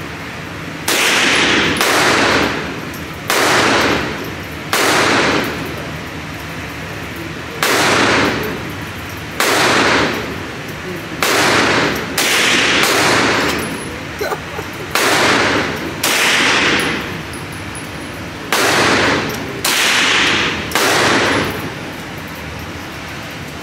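Pistol shots fired one at a time, about fourteen over twenty seconds at uneven intervals of one to two seconds, each with a short ringing tail.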